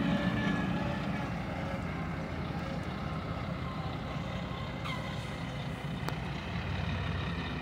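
Heavy vehicle engine running steadily, easing off slightly in the first second. A short falling squeal comes about five seconds in and a sharp click about a second later.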